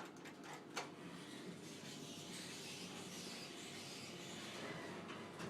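Schindler traction elevator car travelling down: a faint, steady hiss of the moving car, with a couple of sharp clicks in the first second.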